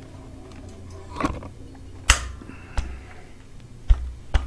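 A few sharp metal clicks and knocks, the loudest about two seconds in, as a magnetic cam-lock tool is handled and set over the cam sprocket bolts. A low steady hum runs beneath.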